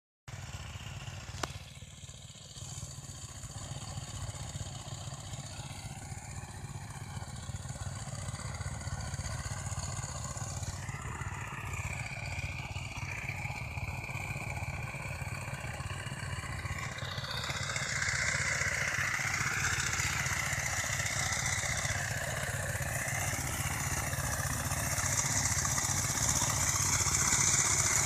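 Tractor engine running steadily with a rapid low pulse, getting gradually louder and harsher over the second half. A single sharp click sounds about a second and a half in.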